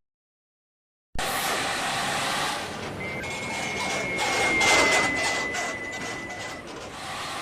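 After about a second of silence, road vehicle noise that swells and fades, with a thin high steady tone held for about three and a half seconds in the middle.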